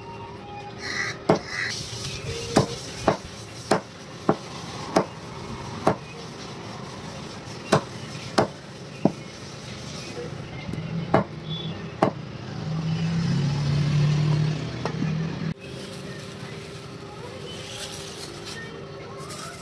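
Heavy knife chopping country chicken on a wooden block: about a dozen sharp chops at uneven intervals. Past the middle, a low drone swells for a few seconds and then stops abruptly.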